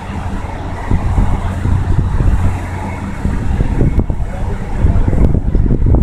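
Wind buffeting the microphone in irregular gusts, over a low, steady rumble. The buffeting gets louder about five seconds in.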